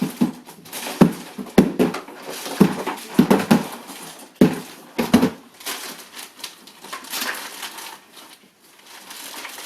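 A series of sharp knocks and clacks, about ten in the first five seconds, then lighter rustling: hard plastic toy-shop parts being handled and fitted together during assembly.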